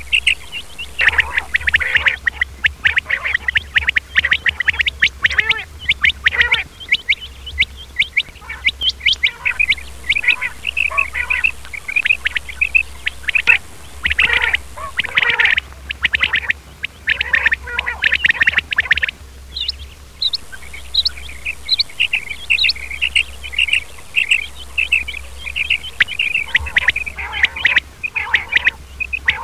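Male quails (batair) calling: quick high clipped notes repeated continuously, at times overlapping, with a few short lulls.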